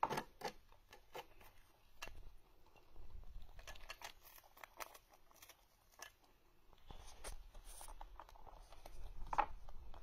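A rabbit biting and crunching a dried grass cake: irregular crisp crunches and clicks, the sharpest at the start and about nine seconds in, with a faint low rumble at times.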